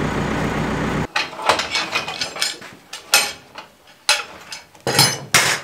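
An engine idles steadily and cuts off suddenly about a second in. Then come a series of irregular sharp metallic clanks and clicks: steel parts of a portable sawmill's bed and log clamps being handled as a log is set for cutting.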